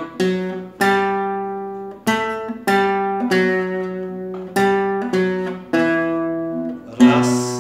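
Acoustic guitar strumming chords in a steady three-beat rhythm: three strums about 0.6 s apart, then a slightly longer gap, each chord ringing and fading before the next. One louder, brighter strum comes near the end.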